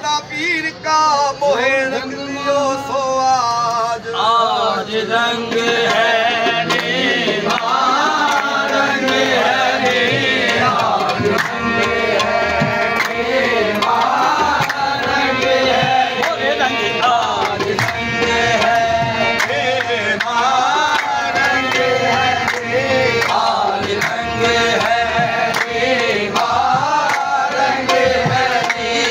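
Live qawwali: a man sings over a harmonium's held chords. About four seconds in, a steady percussion beat sets in under the voice.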